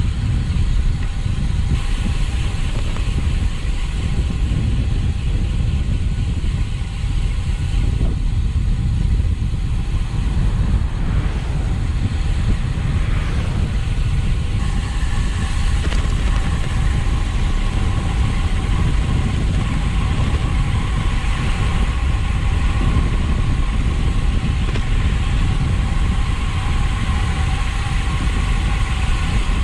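Wind rumbling on the microphone and road noise while riding a bicycle, steady throughout. A faint steady whine joins about halfway through.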